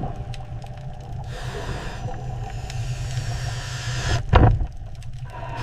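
Deep, steady rumble with a hiss that swells up from about a second in, and one heavy low boom about four seconds in.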